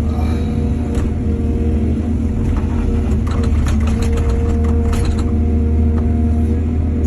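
Excavator's diesel engine running steadily, with a burst of rattling and clattering between about two and a half and five seconds in.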